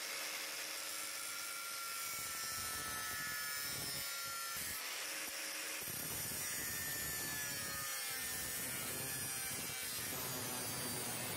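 Angle grinder with a cut-off disc cutting through a sheet-steel computer drive bay cage: a steady grinding hiss over a motor whine that wavers a little in pitch as the disc bites.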